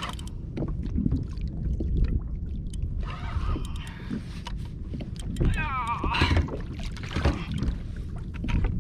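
Water sloshing against a kayak hull with wind on the microphone, under scattered clicks and knocks. A brief warbling whine comes a little past halfway.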